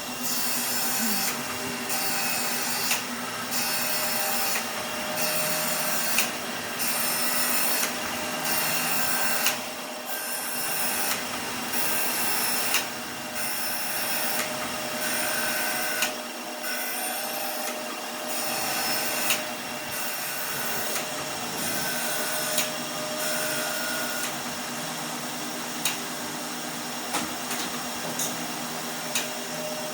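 A metalworking power tool runs steadily while working the slideways of a milling table. A regular cycle repeats throughout, with a stroke about every 1.6 s and a sharper peak about every 3 s.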